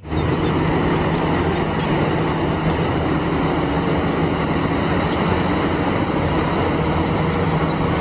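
Caterpillar 6015B hydraulic mining excavator running steadily under load while it digs and loads a dump truck, a loud even machine noise with a steady low hum.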